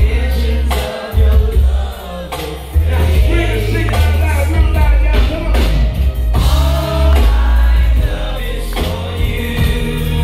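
Loud R&B song played over a concert sound system, with a heavy bass line under singing.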